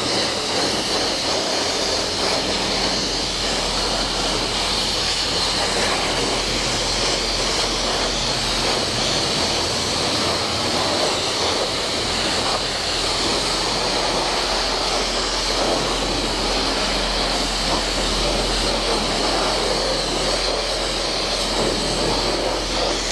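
Self-serve car wash high-pressure wand spraying soapy water onto a motorcycle: a steady, even hiss of spray.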